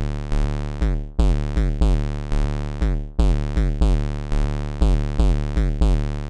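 Elektron Analog Four analog synthesizer playing a sequenced loop of short, quickly decaying notes over deep bass, the pattern repeating about every two seconds. Track 1's feedback oscillator feeds track 2's neighbor oscillator, so where steps line up the two tracks' sounds combine.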